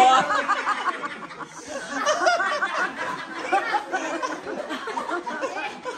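A group of people laughing and chattering over one another, several voices at once.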